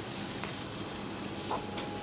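Termal 6 pellet stove running: a steady fan noise with a faint steady tone in it, and a few light clicks, the loudest about one and a half seconds in.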